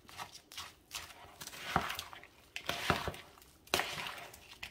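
Spatula stirring a thick mix of hash brown potatoes, broccoli and sour cream in a metal mixing bowl: irregular squishy scraping strokes, with a few sharper clicks about two, three and nearly four seconds in.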